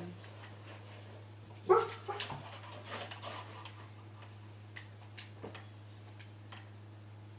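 A boy voicing a dog for a toy: one loud, short whimpering yelp about two seconds in. It is followed by a quick run of soft rustles and light clicks as the plush toy is handled.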